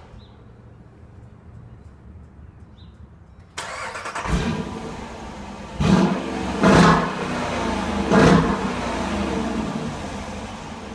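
A 2014 Dodge Durango R/T's 5.7-litre HEMI V8 starts suddenly about three and a half seconds in, then is revved in three short blips before settling into a steady, louder running sound. The revs stay low because the rev limiter holds them back.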